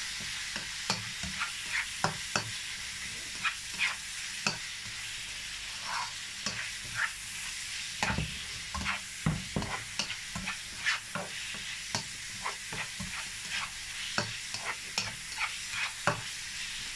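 Minced beef and onion sizzling in a frying pan, stirred with a spatula that scrapes and clicks against the pan at irregular moments over a steady hiss of frying.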